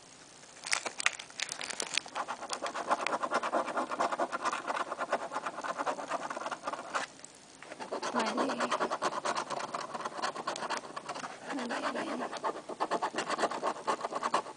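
A coin scratching the latex coating off a paper scratch-off lottery ticket in quick, rapid strokes. The scratching pauses for about a second near the middle, then starts again.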